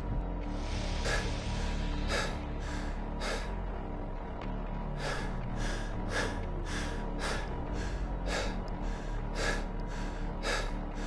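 A person panting hard and fast, out of breath from running: short, loud breaths about two a second, with a brief pause partway through. Low background music underneath.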